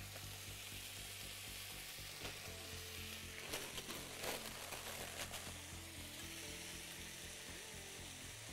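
Vegetable stir-fry sizzling steadily in a hot oiled frying pan, with a few brief crackles partway through as a handful of bean sprouts goes into the pan.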